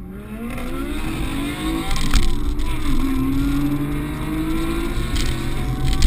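Porsche 718 4.0-litre flat-six engines accelerating hard, led by a straight-piped Cayman GT4 pulling away ahead. The revs climb for about two seconds, a sharp crack comes just over two seconds in, and the pitch dips at a gear change before climbing again more slowly, with a few more short cracks near the end.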